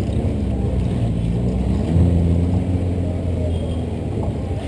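A 1964 VW bus engine running as the bus drives over a sandy off-road trail, pulling harder and getting louder about two seconds in.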